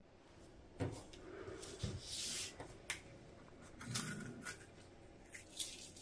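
Faint handling noises: a few light knocks and short paper rustles, with several small clicks near the end as hands take hold of a printed sticker sheet on a plastic cutting mat.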